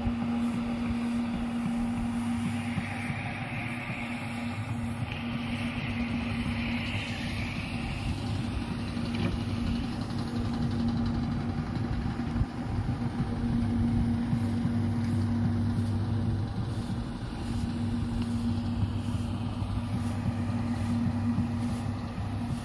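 Steady hum of a running motor, holding one constant pitch with a rushing noise underneath.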